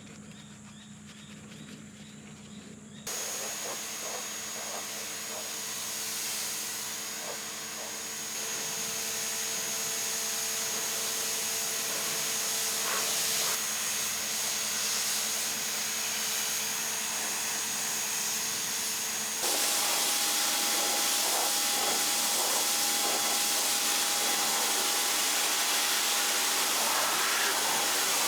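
Pressure washer running and spraying: a steady hiss over a motor hum that starts suddenly about three seconds in and gets louder and changes pitch about two-thirds of the way through.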